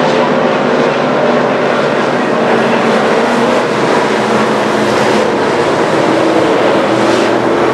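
Street stock race cars running at speed, a loud steady engine drone.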